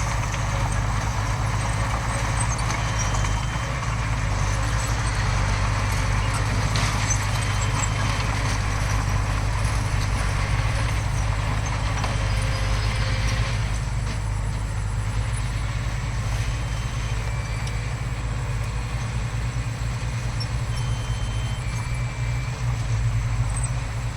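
Heavy diesel earthmoving machinery running steadily, its engine note deep and unbroken.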